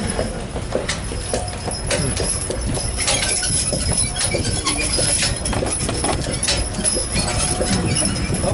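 Hooves of a pair of Belgian draft horses clip-clopping on the road as they pull a trolley.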